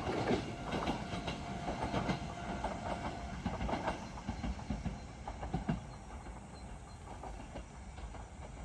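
Iga Railway train moving away, its wheels clacking over the rail joints in an irregular run of knocks that fades steadily.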